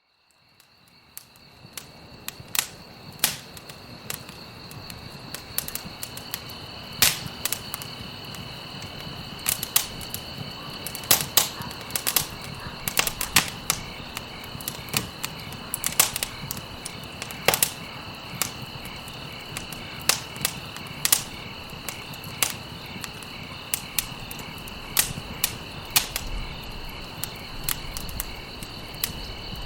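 Wood fire crackling, with sharp irregular pops and snaps over a steady hiss, fading in over the first few seconds. A steady high-pitched tone runs underneath.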